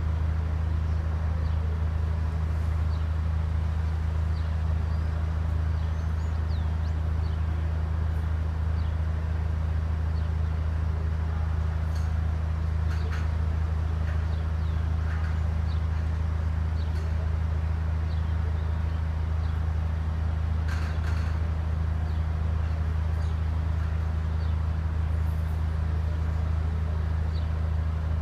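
A steady low hum, with small birds chirping now and then and a few faint clicks.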